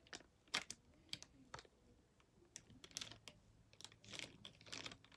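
Faint, scattered clicks and light knocks of small plastic GoPro mount parts being handled and fitted together, busier near the end.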